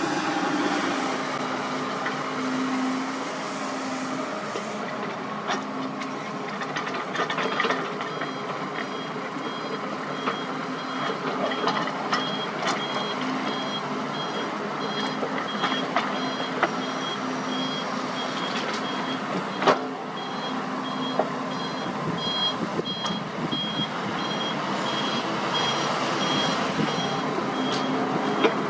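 Backup alarm on heavy equipment beeping in an even, repeating pattern, starting about eight seconds in, over a diesel engine running steadily. A few sharp knocks, the loudest about two-thirds of the way through.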